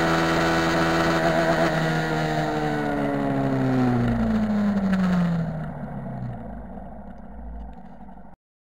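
Benelli TNT 150's single-cylinder engine held at the rev limiter in fifth gear at top speed, with wind rushing over the microphone. About two seconds in the throttle closes and the engine note falls steadily as the bike slows, the wind noise dying away, and the sound cuts off abruptly near the end.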